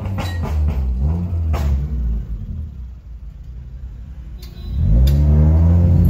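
Engine revving: the revs fall away in the first second or two, it goes quieter, then about five seconds in the revs climb sharply into a loud, deep, sustained note.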